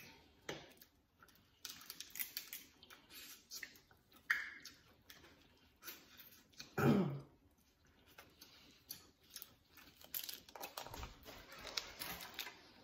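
Chewing and the irregular crackle and snap of boiled crab shells being cracked and picked apart with gloved hands. A brief hum from one of the eaters about seven seconds in is the loudest sound.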